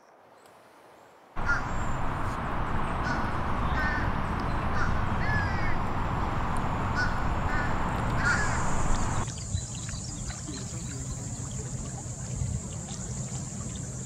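A handful of short bird calls over a loud, steady rushing noise, starting after about a second of near silence. Near the middle the rushing drops to a quieter hiss, and a thin, high, steady whine carries on to the end.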